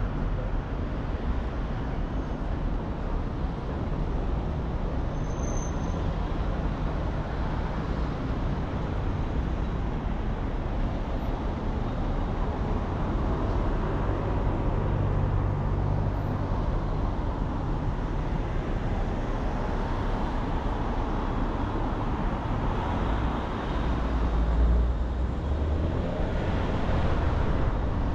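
Steady road and traffic noise of a car driving through city streets: low engine and tyre rumble with other traffic around, swelling briefly near the end.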